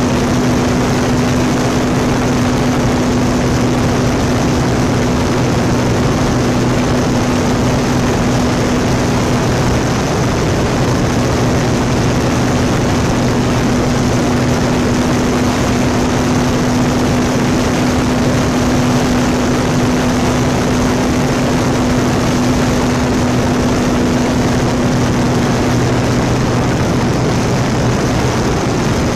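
Electric motor and propeller of an E-flite Apprentice RC trainer plane running steadily at full throttle, a low steady drone under heavy wind rush across a camera mounted on the wing.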